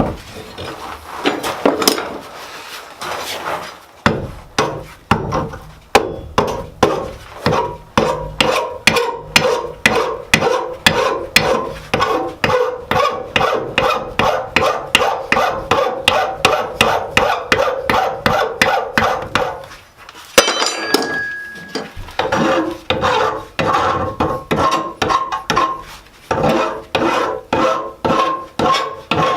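Hammer blows on a piece of spring steel at the anvil, struck steadily about twice a second, each with a short metallic ring. The work is forging a coil spring straight and reducing its striking end. The blows pause for a moment about 20 seconds in, then carry on.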